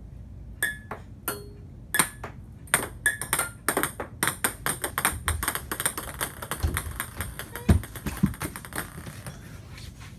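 Ping pong balls bouncing on a hard floor. A few separate bounces give way to a quick, clattering run of many bounces that speeds up and dies away about nine seconds in, with one heavier knock near the end.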